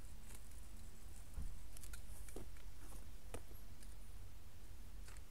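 Wind rumbling on the microphone, with scattered light clicks and taps from handling a fishing rod and reel while a hooked fish is brought in, and one low thump about a second and a half in.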